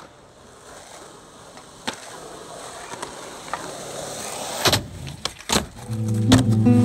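Skateboard wheels rolling over asphalt, growing louder as the board approaches, then two sharp clacks of the board less than a second apart. Music comes in near the end.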